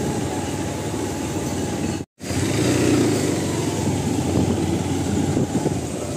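Street traffic noise with motorcycle engines running at low speed. The sound cuts out completely for a moment about two seconds in, then comes back slightly louder.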